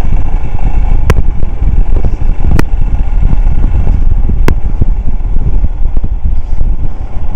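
Motorcycle running, with heavy low rumble on the microphone and three sharp clicks in the first part.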